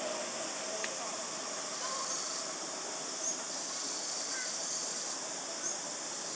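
Steady high insect buzzing, with a few short faint chirps over it.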